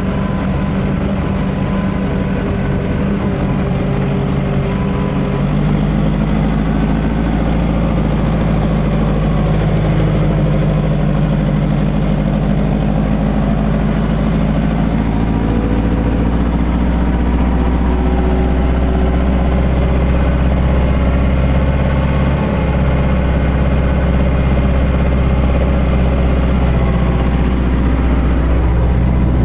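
Landini Blizzard 95 tractor's diesel engine running steadily under load while pulling a furrow press, a little louder and deeper from about five seconds in.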